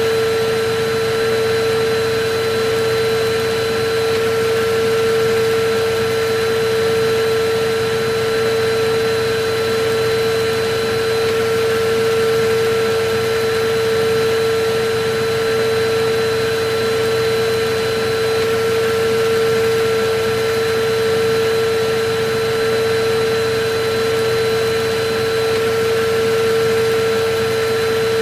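Electric vacuum cleaner running steadily: a constant rush of air under a steady motor whine.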